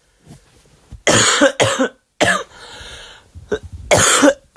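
A person coughing with flu: three harsh coughs in quick succession about a second in, a breath drawn in, then another cough near the end.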